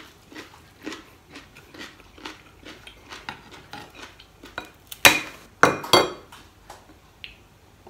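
Chewing with soft mouth clicks about twice a second, then several loud, sharp crackling snaps about five and six seconds in as a slab of crispy deep-fried pork skin is broken apart by hand.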